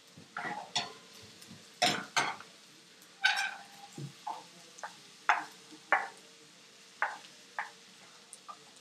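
Metal spoon and spatula clinking and scraping against a stainless steel sauté pan as onions and green peppers are stirred: about a dozen irregular clicks.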